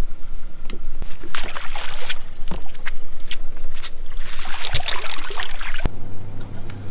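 Seawater sloshing and slapping against the hull of a drifting boat, with scattered knocks and clicks. About six seconds in it cuts off suddenly and a steady low hum takes over.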